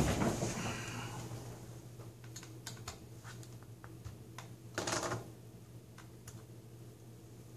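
Small screwdriver working the bezel screws on a laptop's plastic screen bezel. A scuffing knock at the start as the lid is gripped, then scattered light plastic clicks and ticks, with a brief louder scrape about five seconds in.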